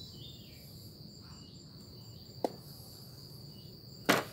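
Insects trilling steadily in the background as one continuous high-pitched tone, with a short click about halfway through and a single louder sharp knock near the end.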